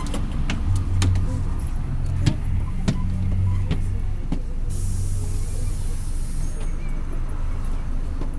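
Mercedes-Benz OF-1721 city bus's four-cylinder diesel engine running under way, a low drone, with several sharp rattles from the body and a hiss lasting about two seconds midway. The bus has a growling ("roncando") bearing.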